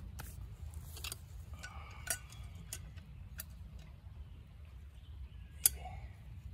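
Sharp metallic clicks from a small folding knife being handled and its blade opened, with one loud snap about five and a half seconds in and a lighter one about two seconds in. Light rustling of leafy plants.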